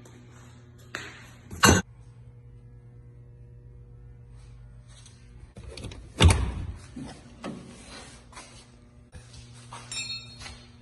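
Two loud bangs, one under two seconds in and a louder one about six seconds in that rings on briefly, with smaller knocks and rustles around them, over a steady electrical hum.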